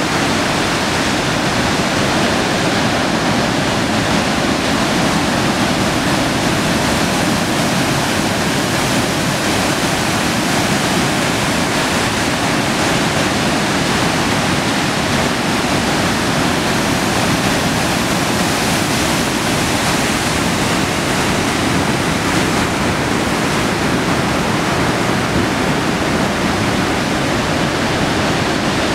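Heavy sea surf breaking on a concrete-block breakwater and the shore, heard as a continuous, even rush of water with no separate crashes standing out.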